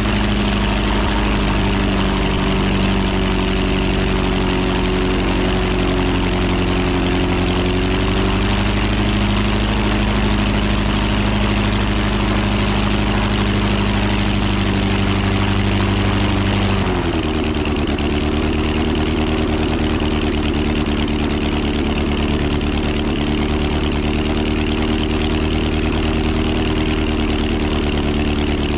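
Half-scale replica ENV Type F water-cooled V8 aero engine running steadily on a test stand, its propeller turning. About two-thirds of the way through, its note shifts abruptly, then holds steady again.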